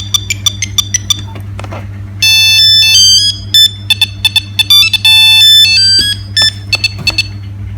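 Nokia 3610 mobile phone ringtone playing through the phone's small speaker: a beeping electronic melody of crisp, stepped notes that starts about two seconds in, after a string of short clicks.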